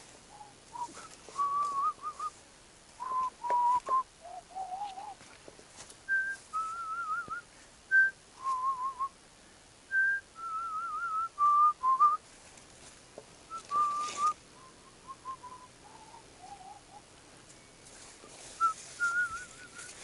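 A person whistling a slow tune, held wavering notes in short phrases that go up and down in pitch. A few brief rustles and knocks come in between, the loudest about 14 seconds in.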